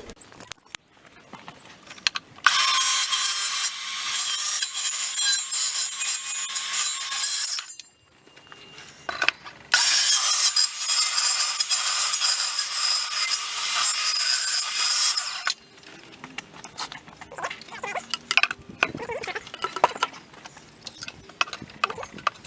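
Electric jigsaw cutting through the wooden table top to lengthen the saw-blade slot, in two runs of about five seconds each with a short pause between. Knocks and clatter of handling follow.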